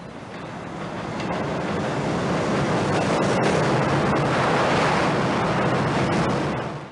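OO gauge model train running past on the track: a rushing rumble that grows louder as it nears, with a few sharp clicks, then cuts off abruptly near the end.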